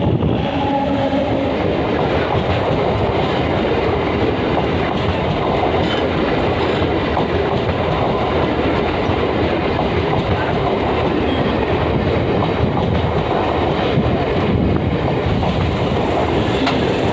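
DEMU (diesel-electric multiple unit) local train passing close by, its coaches' wheels running over the rails in a loud, steady rush of rail noise.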